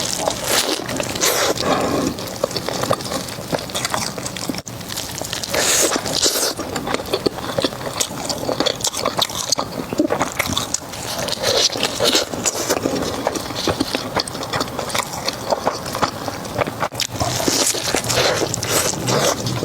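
Close-miked eating: a person biting, crunching and chewing crispy fried food, with a dense run of crackling clicks and wet mouth noises.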